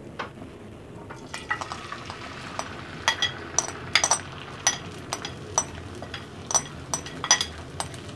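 Cabbage-and-egg omelette batter sizzling as it is poured into hot oil in a frying pan, the sizzle starting about a second in. Over it come many sharp, ringing clinks of a spoon scraping the mixture out of a glass bowl.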